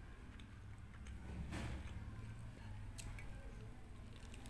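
Faint mouth sounds of eating kimbap, soft chewing and biting into seaweed-wrapped rice. There is a brief swell of noise a little over a second and a half in and a couple of small clicks about three seconds in.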